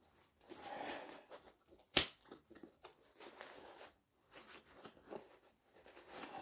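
Rustling and rubbing of a dry suit glove and wrist ring being worked by hand as the glove's O-ring is slid over the quick-clamp docking ring, with one sharp click about two seconds in.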